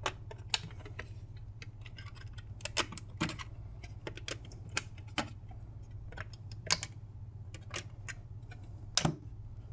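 Irregular sharp plastic clicks and taps as the snap-in clips holding the front plate of a microwave's control panel are pried and released, with a louder double click near the end.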